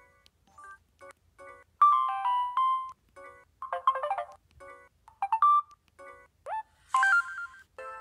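Samsung SGH-G600 mobile phone playing short previews of its message alert tones one after another as the tone list is scrolled, each a brief electronic chime or melody. Short electronic keypad beeps sound between them with each button press.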